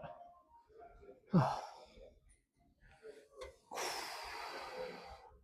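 A man's voice gives a short grunt that falls in pitch about a second in, then a long, hard breath out near the end: effortful breathing while straining through a set of weight lifting.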